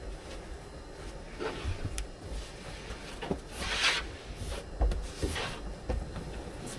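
Handling noises as a van seat and its fittings are pulled and set in place: scattered knocks and rubbing, with a longer scrape just under four seconds in.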